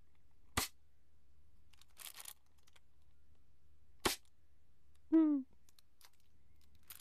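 Plastic bag rustling and a couple of sharp snaps as a rubber band is wrapped around the bunched-up excess of the bag on a plastic-cup vortex cannon. A short pitched sound, falling slightly, comes about five seconds in and is the loudest moment.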